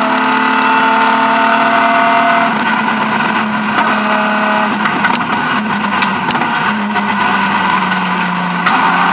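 BMW E36 M3 rally car's straight-six engine heard inside the cockpit at speed: a strong engine note at first, easing off for several seconds with a weaker, rougher sound and a few sharp knocks, then back on the power with a strong note near the end.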